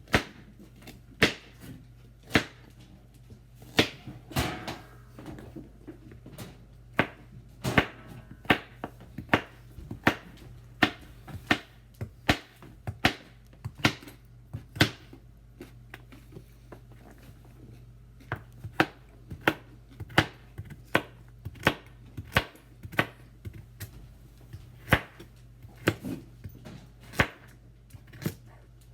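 Kitchen knife dicing carrots on a cutting board: a long run of sharp chops, about one or two a second, over a faint steady low hum.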